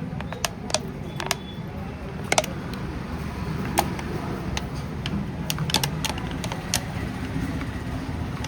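About a dozen light, sharp clicks and taps, irregularly spaced, over a steady low hum.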